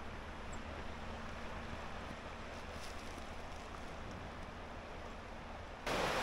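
Steady rushing of a fast-flowing river, which turns abruptly louder and nearer just before the end.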